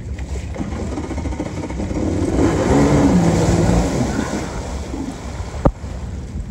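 Kawasaki X2 stand-up jet ski's two-stroke engine revving up as the craft pulls away, with water spray hissing. It grows loudest a couple of seconds in, and a single sharp click comes near the end.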